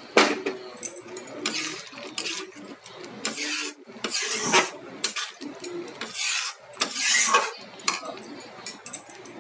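Metal spatula scraping and clinking against a cooking pot while stirring a thick pea curry, a series of irregular strokes.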